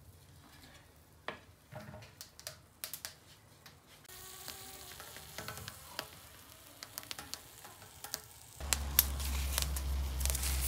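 Tomatoes and green chiles sizzling as they roast on a hot comal, with light taps as the chiles are set down and the tomatoes turned. Near the end the sizzling and crackling get much louder, over a low rumble.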